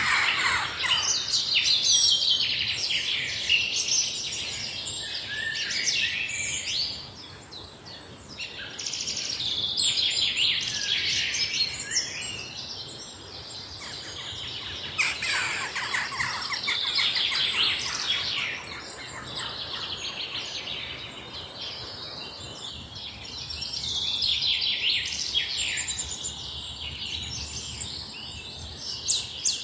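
Many birds chirping and singing together in a dense, overlapping chorus of quick high calls and trills that swells and fades in waves.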